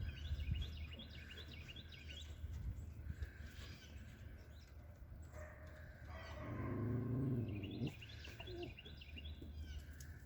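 Small birds chirping in quick high runs, once at the start and again about eight seconds in, over faint outdoor background noise. A louder, lower sound swells and fades in the middle.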